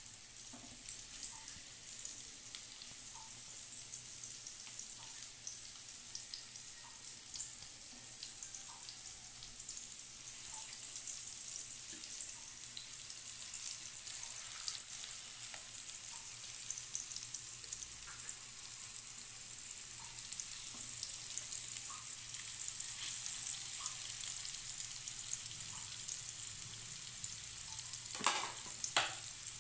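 Breaded gluten pieces deep-frying in hot oil in a wok: a steady crackling sizzle. Two sharp knocks come near the end.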